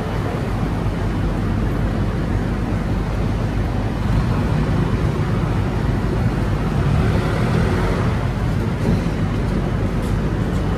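iJooz orange juice vending machine running as its mechanism moves the chosen oranges toward the squeezer: a steady low mechanical rumble and whir that grows a little louder about four seconds in.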